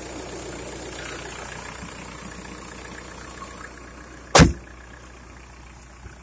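Volkswagen Golf 4's 1.9 TDI four-cylinder turbodiesel idling steadily, with the bonnet slammed shut in one loud bang a little over four seconds in.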